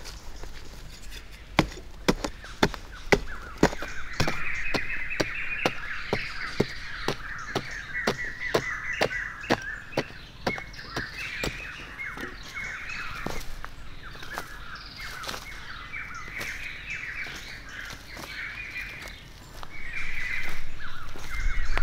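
Hoe blade chopping into dry sandy soil, sharp strikes about twice a second that thin out after the first half, with birds calling and chattering steadily throughout.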